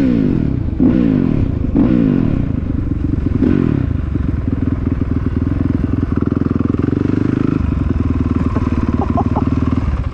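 Honda CRF450R single-cylinder four-stroke engine coming off speed: its pitch falls in several steps over the first few seconds as the rider shifts down, then it runs steadily at low revs with an even pulsing beat as the bike rolls slowly.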